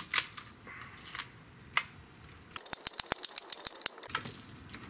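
Barra 1866 multi-pump air rifle being pumped with its lever: a few separate clicks, then a rapid, even run of clicks about halfway through that lasts well over a second.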